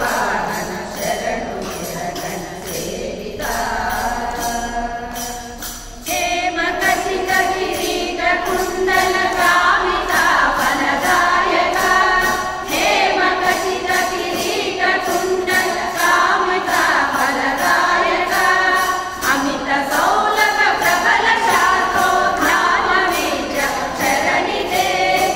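A women's bhajan group singing a Kannada Dasara keertane (Haridasa devotional song) together, one singer leading on a microphone, over a steady rhythmic percussion beat. The singing thins to fewer voices for a few seconds near the start, then the full group comes back in about six seconds in.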